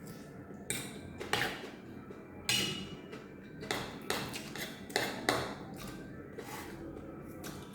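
Eating sounds from a meal of egg hakka noodles: irregular short clinks and scrapes of cutlery on a plate, mixed with mouth noises of eating, about once a second.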